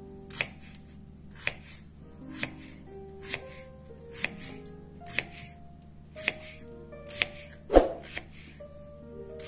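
Kitchen knife slicing through a raw peeled potato and tapping the wooden cutting board, about one cut a second, with a heavier knock about eight seconds in.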